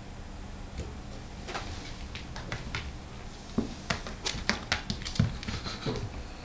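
Cat playing on a wooden floor: a scatter of light taps and knocks from its paws scrabbling and thumping on the boards, thickening into a quick run about halfway through, with one louder knock.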